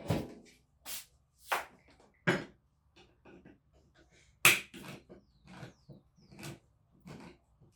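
Irregular knocks and clinks of kitchen utensils and dishes during salad preparation, about one or two a second, the loudest about four and a half seconds in.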